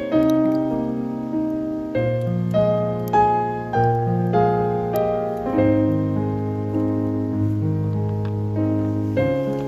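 Background piano music: a slow melody over held bass notes that change every second or two.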